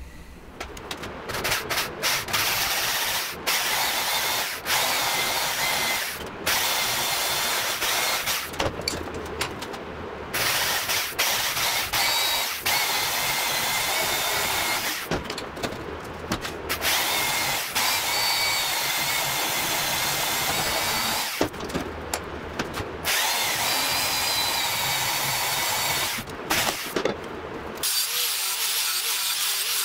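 Angle grinder with a cutting disc cutting through a steel torque tube held in a vise, a steady high whine broken by a few short pauses as the disc is lifted from the cut.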